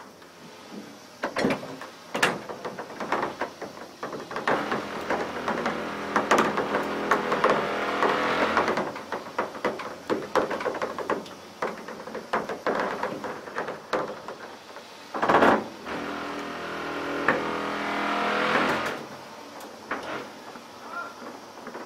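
Slate quarry incline in operation: steel wire rope and loaded incline carriages running on the rails with a clattering metallic rumble that swells twice, with sharp metal clanks and one loud bang about fifteen seconds in.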